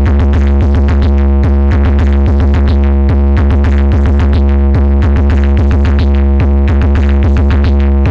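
Loud music with a constant deep bass drone under a fast, even run of repeated note attacks.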